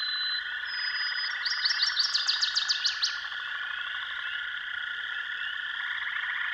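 A steady outdoor animal chorus of fine, rapid pulsing calls. About a second and a half in, a rapid run of about a dozen short, falling chirps rises above it and stops by three seconds in.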